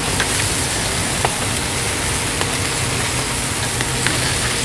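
Chicken sizzling on an open-pit grill grate over a wood fire, a steady hiss with a few faint crackles and pops from the burning wood. A low steady hum runs underneath.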